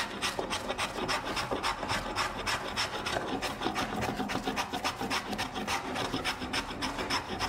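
Small wooden-bodied hand plane shaving a solid wood chair seat in quick short strokes, about four or five a second, each a dry scraping hiss, as the seat's hollow is carved out.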